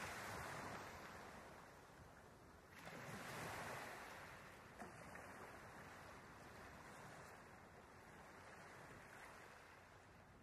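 Faint wash of ocean water, swelling twice in the first four seconds and then settling to a steady hiss.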